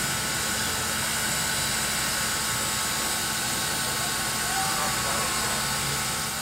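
New Hope & Ivyland No. 40, a 2-8-0 steam locomotive, standing with a steady hiss of steam.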